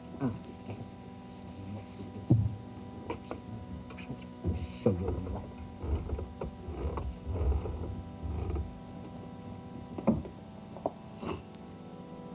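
Steady mains hum with its overtones, carried on the VHS recording, under scattered short knocks and soft, irregular low sounds that are densest in the middle.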